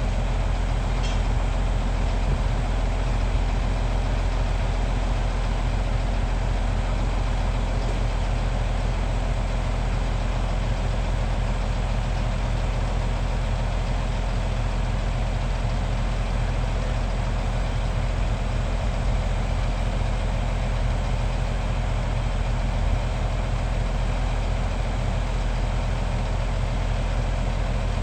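Large excavator's diesel engine running at a steady speed, a deep, even drone with no changes in pitch or level.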